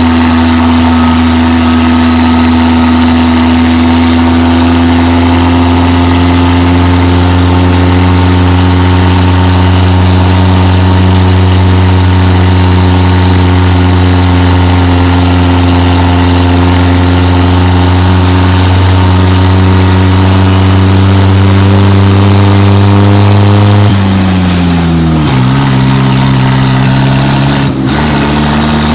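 Tractor's diesel engine running steadily as it drives, its note creeping slowly higher. About 24 seconds in, the engine pitch drops sharply as the throttle comes off, then it picks up and climbs again near the end.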